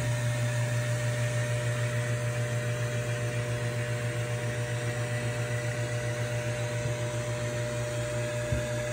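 Air compressor of a Newtowne C4-34 soft hyperbaric chamber running steadily, heard from inside the inflated chamber, keeping it pressurized: a low hum with a fast, even pulsing and two faint steady higher tones. A small knock comes near the end.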